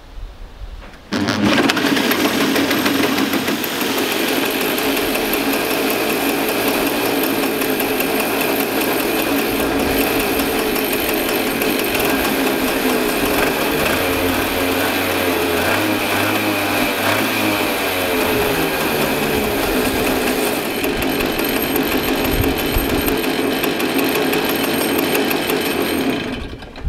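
Two-stroke go-kart engine, spun over with a hand drill, starts about a second in and runs steadily, then is shut off just before the end.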